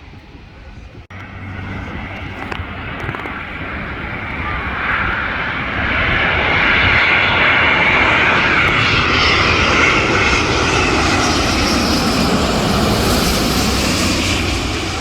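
Jet airliner's engines passing close by, growing steadily louder over several seconds, then a falling whine as it goes past, easing off near the end.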